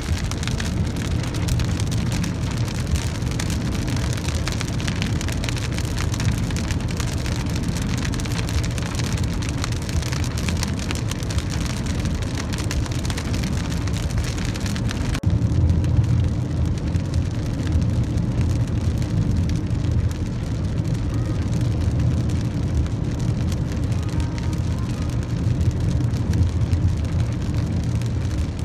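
Rain falling on a car's windshield and body over the steady low rumble of the car and its tyres on a wet highway, heard from inside the cabin. About halfway through, the high rain hiss drops away abruptly, leaving mostly the road rumble.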